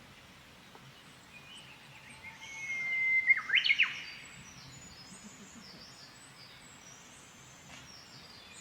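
Japanese bush warbler (uguisu) singing one "hoo-hokekyo" song: a long whistle that swells, then a quick warbled flourish. Thin high calls of other birds sound throughout.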